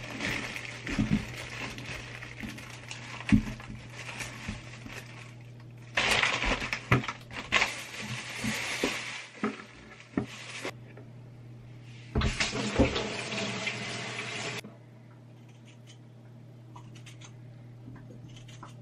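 Thin plastic produce bags crinkling and rustling as vegetables are pulled out of them, with light knocks of potatoes and a carrot set down on the counter. About 15 seconds in the rustling stops, leaving faint scraping ticks of a hand peeler on a potato.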